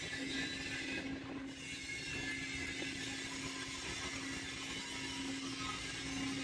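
A steady mechanical hum: one held tone over a constant hiss, unchanging throughout.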